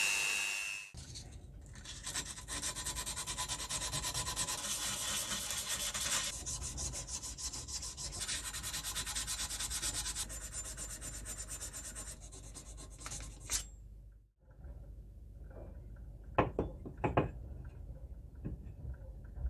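Blue abrasive paper rubbed by hand back and forth along the steel shaft of a leatherworking hammer: a fast, steady scratching for about twelve seconds, stopping a little past the middle. A few sharp knocks follow near the end.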